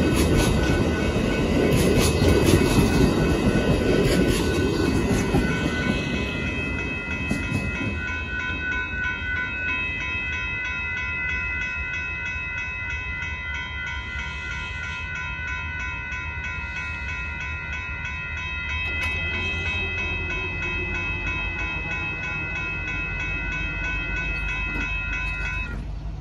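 Amtrak passenger train rolling past a grade crossing, wheels rumbling and clacking over the rails for the first six seconds or so. After the train has passed, the crossing warning bells ring on steadily, then stop just before the end as the gates rise.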